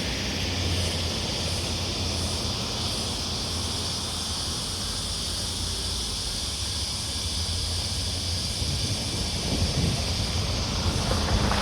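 Countryside roadside ambience: a low wind rumble and a steady high hiss. Near the end a road vehicle approaches and grows louder.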